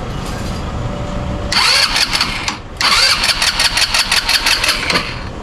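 Easyride 150N motorcycle's electric starter cranking the engine in two tries, about a second and then about two seconds long, with a fast rhythmic chug and no clear catch: the hard-starting condition the owner blames on the stock CDI.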